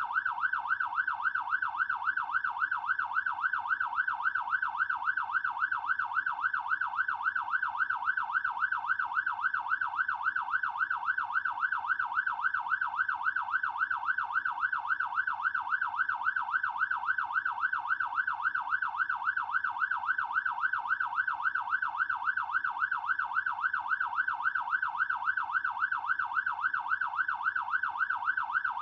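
Fire truck's electronic siren in a fast yelp, its pitch sweeping rapidly up and down about three or four times a second without pause.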